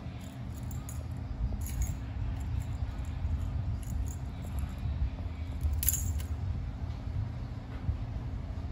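A cat toy's metal spring and beads clinking and jingling on a tile floor as a kitten bats and bites at it, with a couple of sharp clicks about two and six seconds in, over a steady low rumble.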